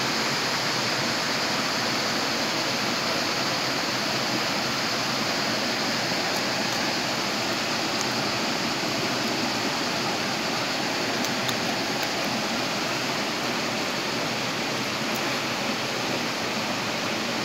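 Shallow stream rushing steadily over small cascades between rocks, a constant even sound of running water.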